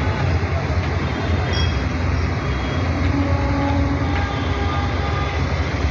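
Heavy diesel engine running with a steady low rumble.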